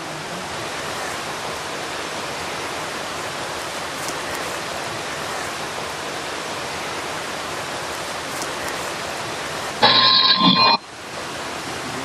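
Steady hissing noise, with one short, louder burst carrying a few steady tones about ten seconds in.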